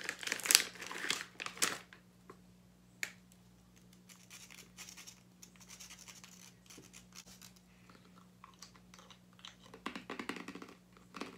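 Plastic candy bag crinkling loudly as it is pulled open and handled for the first two seconds, then quieter scratchy handling as pieces of freeze-dried candy are broken apart. A steady low electrical hum runs underneath.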